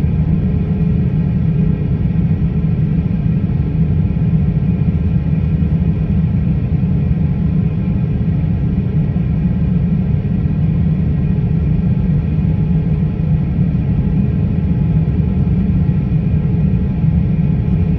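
Airliner's jet engines idling on the ground, heard inside the cabin as a steady low rumble with faint steady tones above it.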